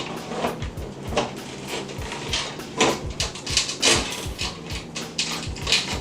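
A hip-hop beat with a steady bass line plays under irregular clicks, knocks and scrapes as computer parts and cables are handled during assembly.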